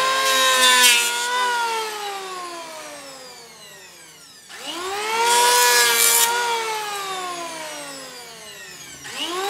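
Handheld electric wood planer working a wooden window frame. The motor whines at speed and the blades hiss across the wood for about a second, then it is switched off and winds down with a long falling whine. It is started again about halfway through with a rising whine, takes another short pass, winds down, and starts once more near the end.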